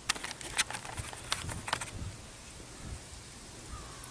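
Light clicks and taps of the outboard's metal water pump housing and its rubber impeller being handled, a quick irregular run of them in the first two seconds, then quieter.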